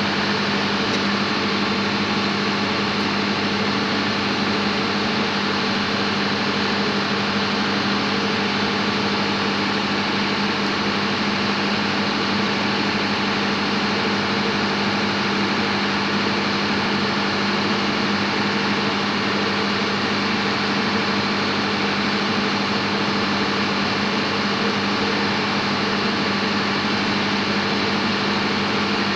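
Steady drone of running engine-room machinery, such as an auxiliary diesel generator, with a strong low hum and no change in pitch or level.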